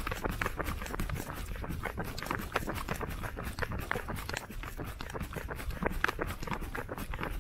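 A runner's quick, rhythmic footfalls on a concrete path, over a steady low rumble.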